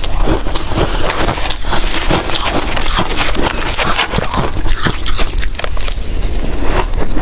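Ice being chewed and crunched close to the microphone: a dense, irregular run of crackling crunches.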